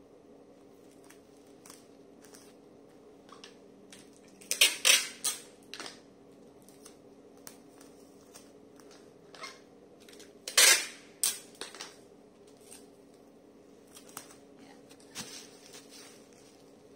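Black bubble-wrap packaging crinkling and crackling as a gloved hand presses and smooths it: scattered sharp crackles, loudest in two clusters about five and eleven seconds in.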